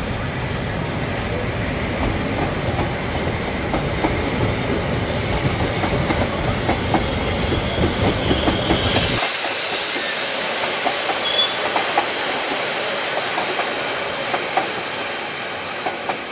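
Harzer Schmalspurbahnen metre-gauge passenger coaches rolling past, their wheels clicking over rail joints with a faint wheel squeal. About nine seconds in there is a brief burst of hiss, and the low rumble cuts out suddenly while the clicking goes on.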